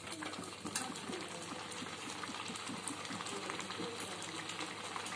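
Carrot halwa simmering in a steel kadai, the thick milky mixture bubbling with many small, irregular plops and a few sharp pops.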